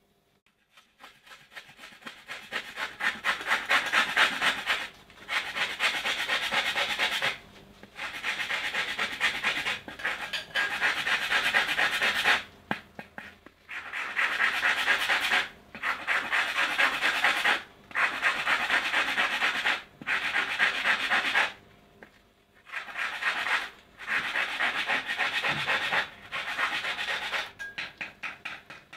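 Orange peel being grated on a flat metal hand grater: quick rasping strokes, in runs of one to a few seconds separated by brief pauses.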